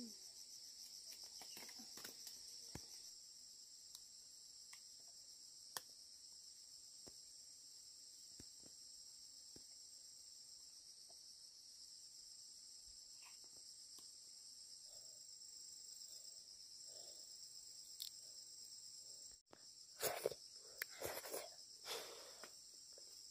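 Steady chorus of insects, a faint high pulsing trill, with a few light clicks scattered through and a short burst of rustling and knocks near the end.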